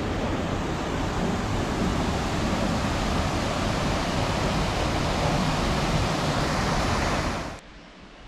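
Water rushing steadily over a small weir in a stream channel, a loud even rush that cuts off abruptly near the end, leaving a much quieter background.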